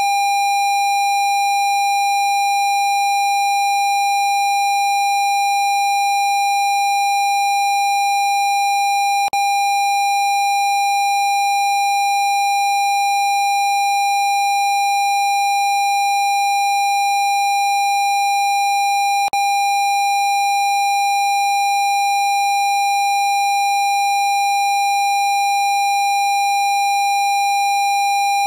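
Steady electronic sine tone at 802 Hz, held at one pitch without change, with a faint click twice, about ten seconds apart.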